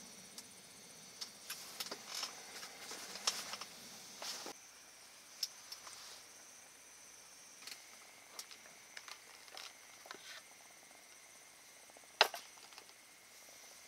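Faint, steady chirping of insects in grass, with scattered light clicks and knocks of cookware and gear being handled on a wooden camp table, the sharpest knock near the end.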